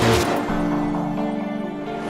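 Background music with held notes, opening with a brief noisy swell.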